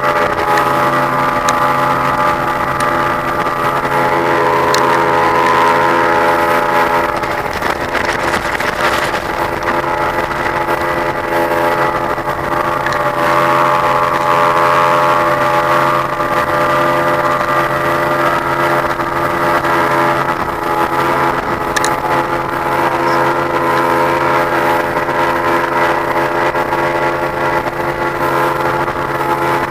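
Fishing boat's engine running steadily under way, heard from aboard, over a steady hiss.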